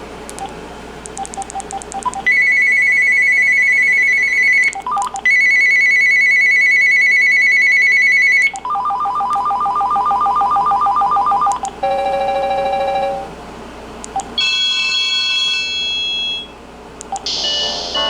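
Uniden D3280-2 DECT 6.0 cordless phone handset playing its ringtones one after another. A few short beeps come first, then a fast, high warbling trill, a lower trill, a two-tone ring and another higher ring, each a few seconds long.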